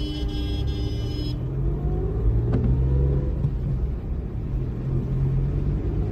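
A car horn held on, cutting off abruptly about a second in, followed by the car's engine and road rumble heard from inside the cabin as it accelerates away, the engine note rising briefly a couple of seconds in.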